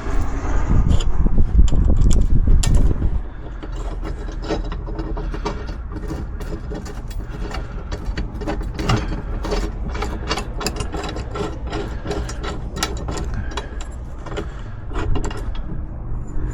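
Hand ratchet clicking in quick runs as a bolt is driven in, after a loud low rumble lasting about the first three seconds.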